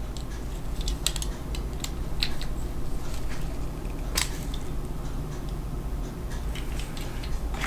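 A small screw being started and turned into plastic model-kit parts: scattered light clicks and scrapes of plastic and metal, the sharpest about four seconds in, over a steady low hum.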